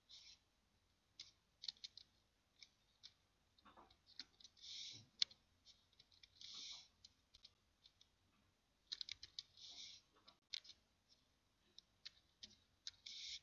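Sporadic computer keyboard keystrokes and mouse clicks as names are typed into spreadsheet cells, with a few short soft hissing sounds between them, about a second or two apart.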